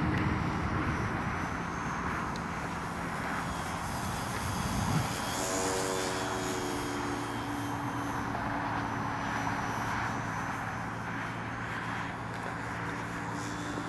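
Electric motor and propeller of a ParkZone Spitfire RC model plane droning steadily as it flies overhead, with wind buffeting the microphone. The drone turns briefly higher and stronger around six seconds in.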